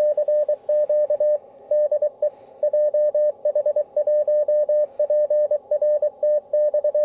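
Morse code tone of a ham transceiver's CW sidetone, a steady pitch near 600 Hz keyed in dots and dashes by the contest logging software. The transmitter is switched off, so only the sidetone sounds.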